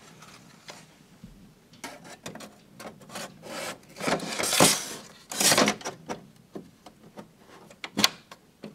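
Mac Pro's metal memory tray being slid back into the case by hand: rubbing, scraping strokes, the two longest about four and five seconds in, among scattered knocks, with a couple of sharp clicks near the end.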